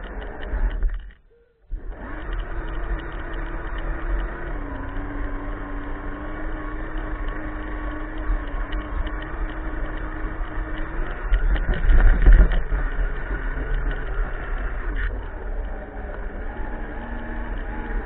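Radio-controlled scale crawler's electric motor and gearbox whining steadily as it drives over leaves, the pitch shifting with speed. The sound drops out briefly about a second in, and there is a louder, rougher stretch about twelve seconds in.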